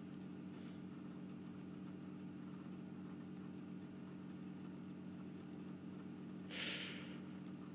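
Steady low mechanical hum, with a short burst of hiss about six and a half seconds in.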